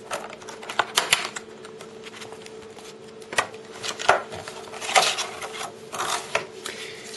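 Retail packaging handled by hand as the armband case is pulled out of its box: irregular clicks, taps and short rustles of cardboard and plastic.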